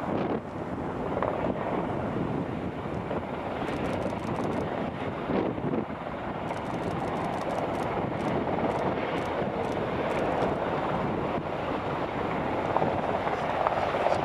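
Sikorsky S-92 helicopter hovering and air-taxiing low: a steady rush of main-rotor and twin-turbine noise, with wind buffeting the microphone.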